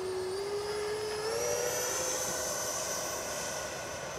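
Whine of the 80 mm electric ducted fan of an FMS Futura V2 RC jet in flight. The pitch steps up twice, about half a second and just over a second in, as the fan speeds up, then holds steady.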